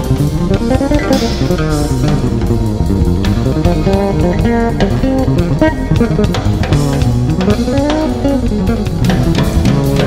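Jazz-fusion electric bass solo over a drum kit: fast, even runs of notes high up the neck, sweeping up and down in pitch.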